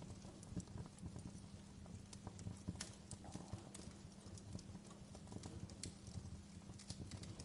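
Fireplace fire crackling: faint, irregular pops and snaps, several a second, over a low rumble and a steady low hum.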